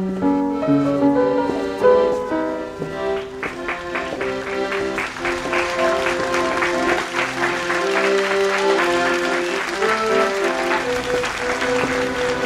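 Accordion music playing a melody in sustained reedy notes. From about three seconds in, an audience applauds over it.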